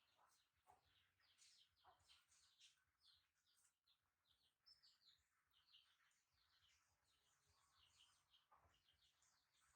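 Very faint chirping of small birds: a steady run of short, high chirps, several a second.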